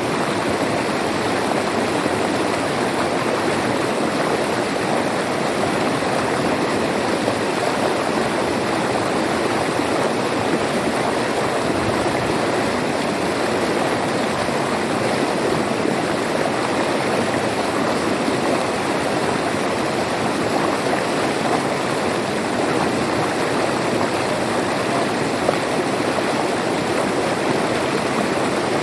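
River water flowing and splashing over rocks, a steady rushing that does not let up.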